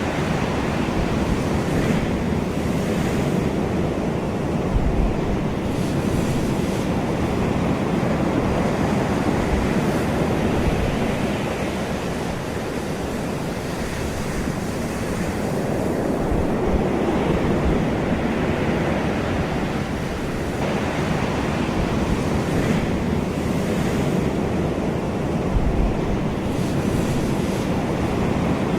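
Ocean surf washing ashore in a continuous rush, swelling and easing every several seconds as waves break and draw back, with a few low thumps of wind on the microphone.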